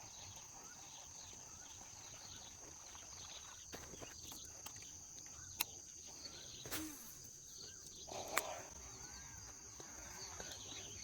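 Steady high-pitched insect drone, with a few short bird chirps and a couple of sharp clicks about five and eight seconds in.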